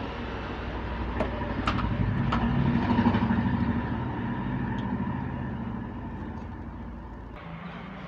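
A motor vehicle's engine passing by, growing louder to about three seconds in and then fading away, with a few sharp clicks in the first couple of seconds.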